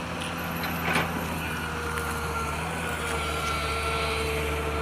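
An engine running steadily with an even hum, and a single knock about a second in.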